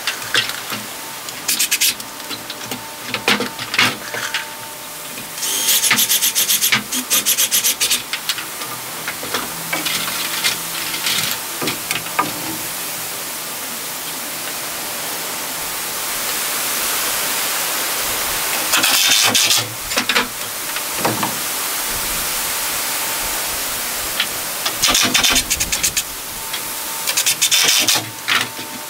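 Hand work on wooden rafters overhead: several bursts of rapid scraping or rasping strokes on wood, with scattered knocks and a steady hiss between them.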